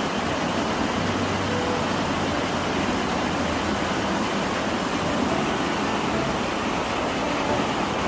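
Mountain valley stream rushing over rocks: a steady, unbroken rush of water.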